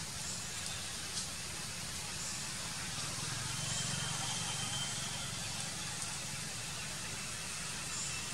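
Steady outdoor background noise: an even hiss with a low hum underneath. A faint, thin high tone comes in about three and a half seconds in and again near the end.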